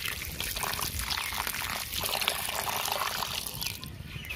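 Water poured in a stream into a metal kadai onto raw cauliflower florets, splashing and trickling. The pour stops near the end.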